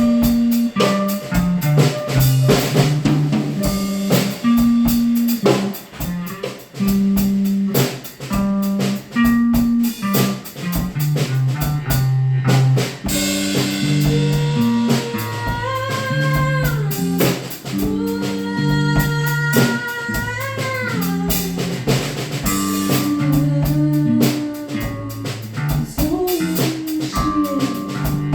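Instrumental band music: a drum kit and a stepping bass line, with a lead guitar holding long notes that bend upward, starting about halfway through.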